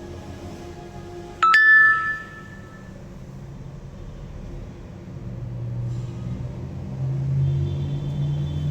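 A single bright ding about a second and a half in, ringing briefly and fading, then a low rumble that builds through the second half.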